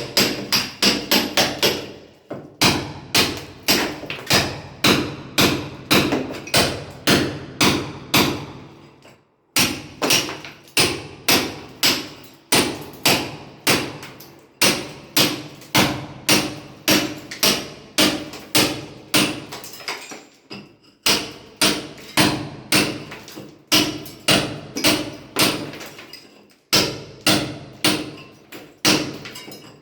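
Hand hammer blows on masonry in steady runs of about two strikes a second, each with a short ring, broken by brief pauses: a mason breaking up a wall.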